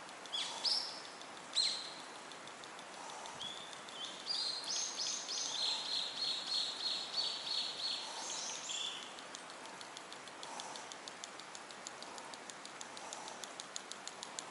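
A songbird calls twice and then sings a run of repeated high whistled notes. From about halfway through, a steady light clicking sets in, around four or five clicks a second: the blade of a Deps Toddrat surface lure knocking against its body as it is slowly reeled across the water, a "kako kako" sound.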